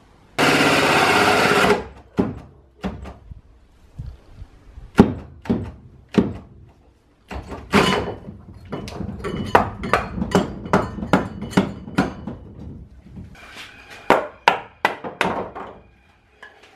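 Hand-tool and drill work on a fibreglass boat hull: a loud burst of noise lasting about a second, starting half a second in, then a run of sharp knocks and thuds that grows to about two a second in the second half.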